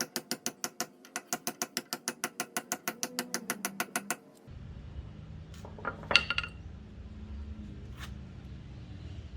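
Rapid, steady hammer taps, about six a second, on the flat side of a mallet, driving a new differential seal into place. The taps stop about four seconds in. A metallic clink follows about two seconds later over a low steady background.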